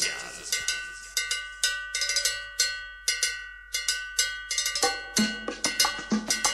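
Percussion-led music: sharp, ringing metallic strikes in a quick, uneven rhythm, with a deeper drum-like hit joining about five seconds in.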